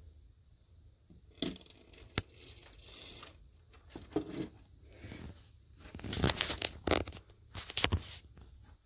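Handling noise of small die-cast model crane parts and the camera being moved over a tabletop: scattered clicks, scrapes and rustles, busiest about six to eight seconds in.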